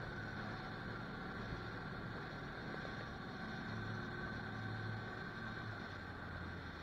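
Parasail boat's engine running steadily under way: an even low drone with rushing water and wind noise over it.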